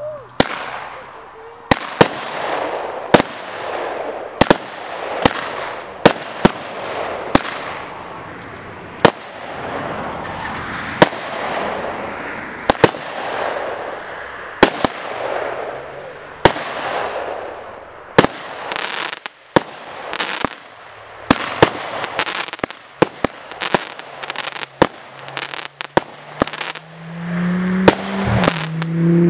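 Majestic Fireworks 'Action Zone' 24-shot firework cake firing: a string of sharp bangs about one a second, with the hiss of each shot between them. In the second half the shots come faster, with bursts of crackling.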